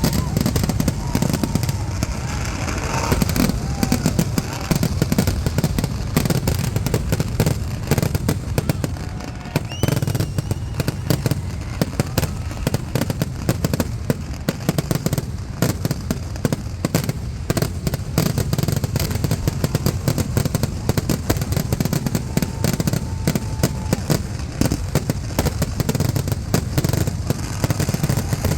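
Kerala temple-festival fireworks (vedikettu): a dense, unbroken barrage of firecracker bursts, rapid cracks and bangs running together.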